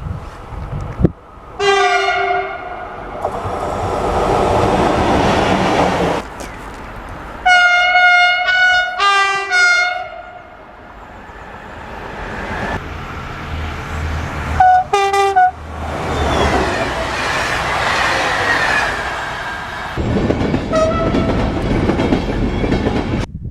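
Train horns sounding in several short clips: a blast about two seconds in, a run of blasts from about seven to ten seconds, another pair near fifteen seconds and a short one near the end. Between them, passing trains make a steady rumbling, rattling noise.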